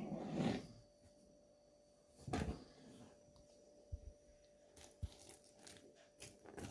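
Faint scattered kitchen handling sounds from working with ingredients: a short rustle at the start and another about two and a half seconds in, then a few light taps, over a faint steady hum.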